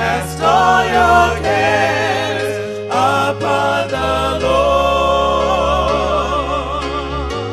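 Gospel music: voices singing with vibrato over sustained bass notes.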